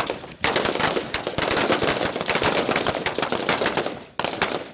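Rifles firing along a firing line: a dense crackle of rapid, overlapping shots starts about half a second in, thins out near the end, and a few separate shots follow.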